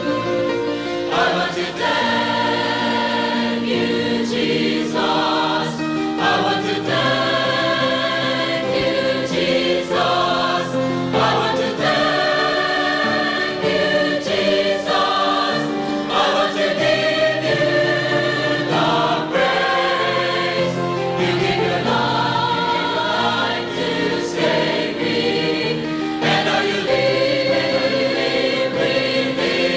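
A choir singing a slow Christian song in held notes, the chords changing every second or two.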